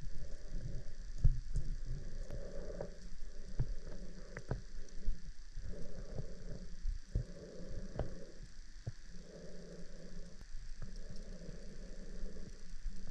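FIFISH underwater drone's thrusters whirring in on-and-off bursts of about a second each, heard underwater, with scattered clicks and knocks and a low rumble.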